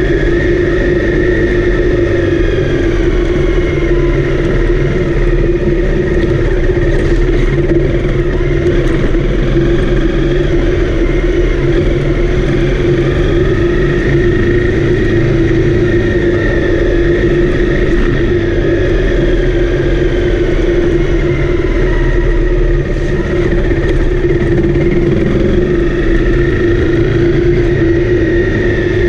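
Honda CRF250L's single-cylinder four-stroke engine running under way, loud and steady, its pitch rising and falling gently with small changes in throttle.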